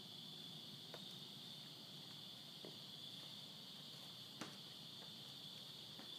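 Faint, steady high-pitched insect chorus on a night terrace, with a few soft ticks, the clearest about four and a half seconds in.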